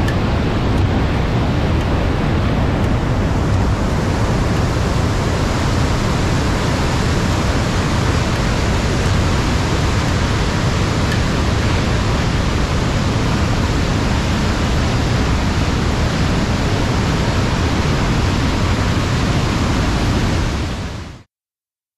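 Steady roar of falling water at Niagara Falls, cutting off suddenly near the end.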